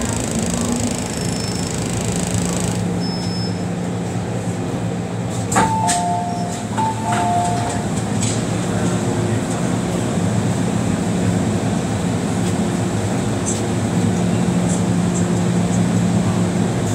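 MTR metro train car coming to a stop in a station: the hiss of the running train fades about three seconds in, leaving a steady hum from the car's equipment. About halfway through there is a sharp click, then a two-note high-low door chime sounds twice as the train stands at the platform.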